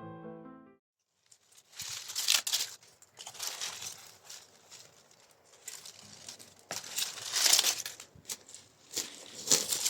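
Soft piano music fades out, then after a short pause comes irregular crinkling and rustling of something being handled, in uneven bursts.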